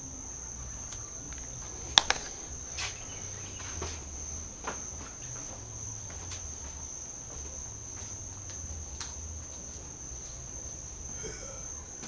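A continuous high-pitched insect trill, typical of crickets, with a single sharp click about two seconds in and a few fainter ticks after it.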